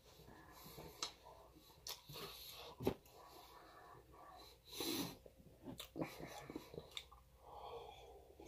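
Quiet mouth sounds of a person eating: chewing, lip smacks and finger licking, with a few sharp wet clicks and breathing through the nose, then a sip from a mug near the end.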